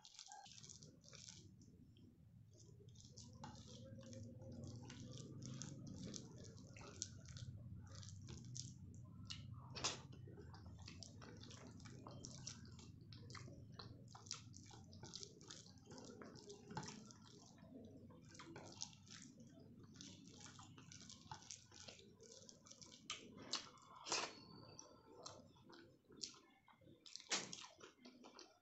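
Close-miked wet eating sounds: chewing and smacking of rice and dal, with many short mouth clicks, over a low hum in the first half.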